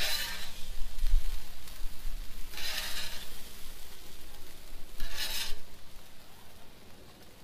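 Metal spatula scraping across a steel Blackstone flat-top griddle three times, about every two and a half seconds, as it scoops diced potatoes onto frying ground beef.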